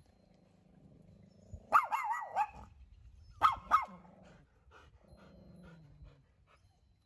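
A dog barking in two short bursts of high-pitched yaps, the first about two seconds in and the second about three and a half seconds in.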